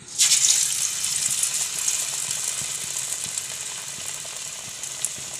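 A slice of bread coated in gram-flour batter goes into hot oil in a kadhai and starts sizzling suddenly and loudly, the sign that the oil is hot enough for deep-frying. The sizzling then eases gradually.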